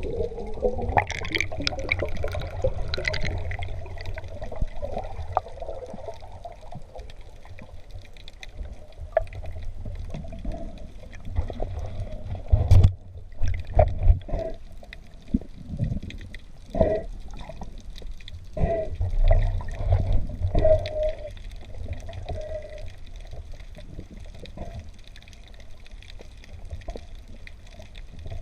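Sea water moving and gurgling around the camera, with a low rumble throughout and a cluster of sharp knocks and clicks in the middle.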